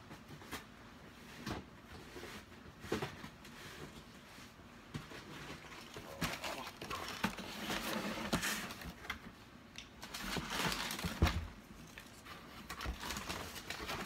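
Cardboard sneaker box being handled and opened, with irregular rustling and light knocks as a sneaker is lifted out. It is busiest around the middle.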